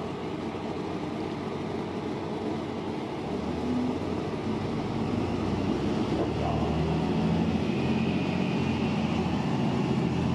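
A city bus running, heard from on board: steady engine and road noise. The engine note grows louder and stronger about halfway through as the bus pulls along.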